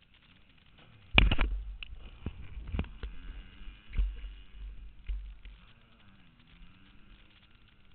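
Camera handling noise: a sharp bump about a second in, then several more knocks and low rumbles as the camera is moved about, fading away after about five seconds.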